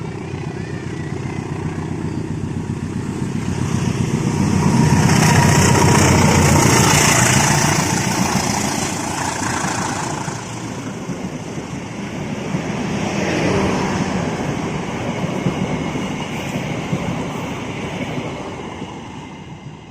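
The Pasundan passenger train passing close by. Its rumble and rattle grow to a loud peak about five to eight seconds in, ease off, swell again around thirteen seconds, then fade.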